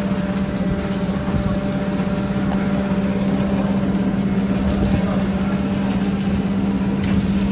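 Steady machine hum: a motor running at a constant pitch, one strong low tone with fainter overtones over a low rumble, unchanging throughout.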